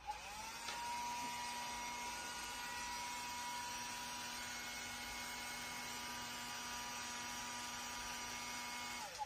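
Hand-held hair dryer blowing steadily, its motor whine rising in pitch as it starts up and sliding down as it is switched off near the end.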